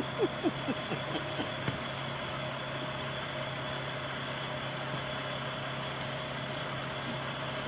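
A semi-truck's diesel engine running steadily at low speed. In the first two seconds a run of short, falling squeaks, about four a second, fades out.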